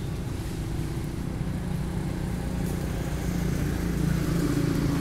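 An engine running steadily with a low hum, growing a little louder past the middle.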